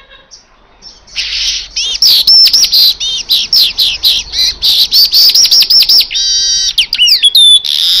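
Male manyar kepala emas (golden-headed weaver) singing loudly: after a quiet first second comes a fast run of sharp, repeated high chirps, then a rattling trill and a falling note, ending in a long wheezy buzz.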